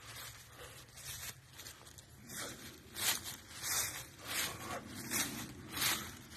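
Footsteps walking through dry fallen leaves on grass, the leaves crackling at each step at a steady pace of about one step every 0.7 seconds, louder from about two seconds in.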